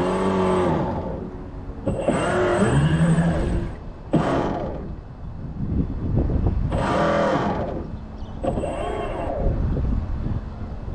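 Small electric motor on a radio-controlled model boat whirring in five short bursts, each about a second long and rising then falling in pitch, over a steady low rumble.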